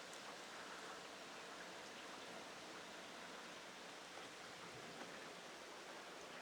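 Steady rain falling: a faint, even hiss with a few scattered small ticks.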